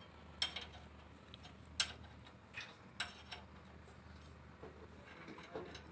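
Sparse sharp metallic clinks, about five in the first three and a half seconds, from hand tools knocking against a truck's leaf spring and axle.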